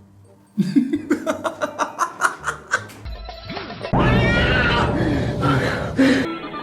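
Music from a phone clip, with short laugh-like vocal sounds and sharp clicks. About four seconds in it gets louder and fuller, with a gliding voice over it.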